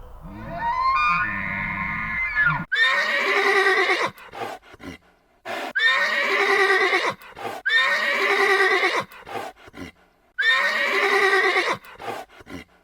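An animal calling: one call near the start, then four similar loud calls about two seconds apart, each about a second and a half long, with a wavering pitch.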